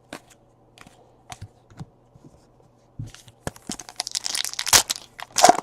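A few faint clicks, then about three and a half seconds in a trading card pack's wrapper is torn open, crackling and crinkling for about two seconds.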